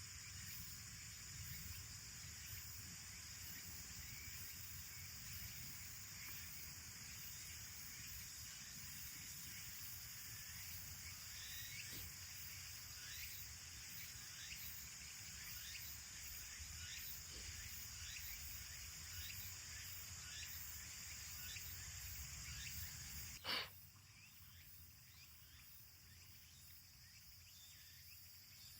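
Small wood campfire crackling with light irregular ticks over a steady high chirring of insects. A single sharp click sounds near the end, and the sound then drops quieter.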